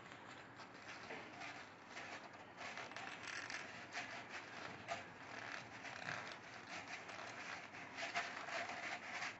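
Sheet of A4 paper rustling and crinkling faintly in irregular little crackles as it is folded over and over into a thin stick.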